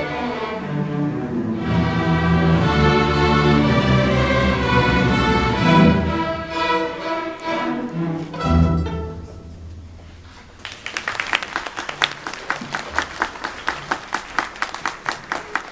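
Middle school string orchestra, double basses through violins, bowing the closing bars of a piece in a minor key. It ends on a loud low final note about eight and a half seconds in. Audience applause breaks out a couple of seconds later.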